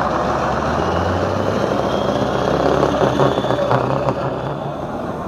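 Scania tractor unit's diesel engine running at low revs as the truck pulls slowly past, its low steady drone rising a little midway and fading near the end.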